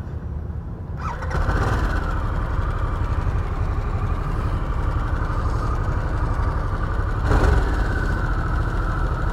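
Harley-Davidson Sportster S's Revolution Max 1250 V-twin being started at the push of the starter button. It catches about a second in and then idles steadily, with a brief swell about seven seconds in.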